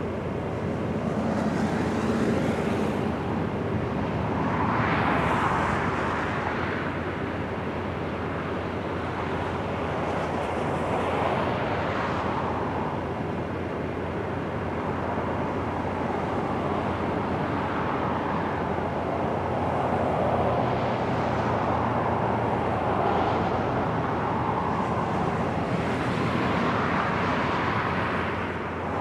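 Lockheed C-130 Hercules turboprop transport landing and rolling out, its four propeller engines giving a steady distant rumble that swells and eases several times.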